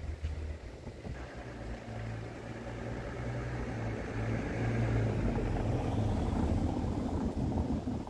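Low, steady engine rumble of a motor vehicle, growing louder through the middle of the stretch and easing slightly near the end.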